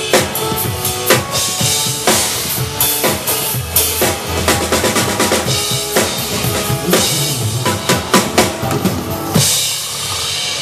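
Drum kit played live over a backing track, with kick drum, snare and cymbal hits. The playing stops on a last hit about nine and a half seconds in, and a high wash fades after it.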